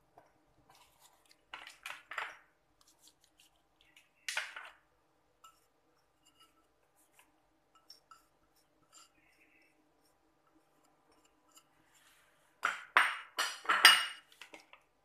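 A small ceramic bowl and plate clinking and scraping against each other as seasoning is tipped and rubbed onto a raw fish: scattered light clinks, one sharp clink about four seconds in, and a quick run of louder clinks and scrapes near the end.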